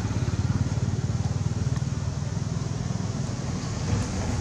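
Steady low rumble of an engine running at idle, with a fast, even pulse.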